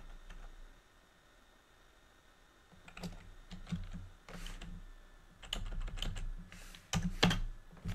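Computer keyboard keys clicking in scattered, irregular strokes, starting about three seconds in.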